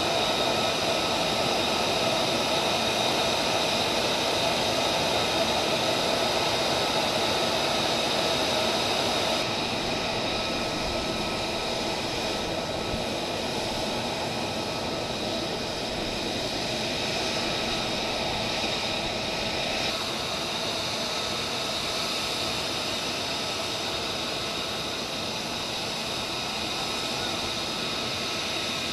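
Jet engine running at idle: a steady rushing noise with a high whine held on several steady pitches, dropping a little in level about ten seconds in.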